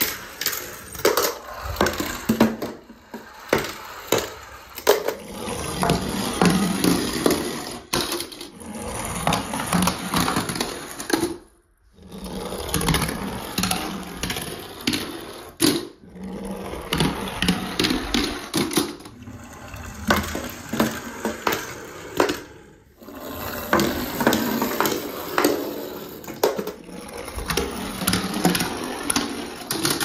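Die-cast toy cars rolling down a wooden slide and clattering into a bucket piled with other toy cars. A busy run of clicks, knocks and rattles, broken by a few short gaps.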